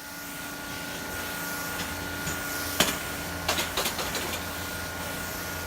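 Steady mechanical hum with a few sharp clicks and taps about three and four seconds in.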